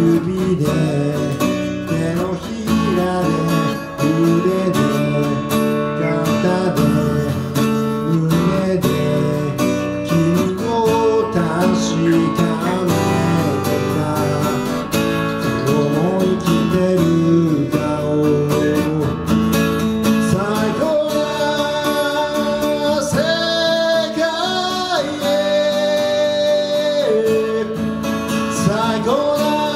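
Acoustic guitar being strummed, with a man's singing voice over it in places.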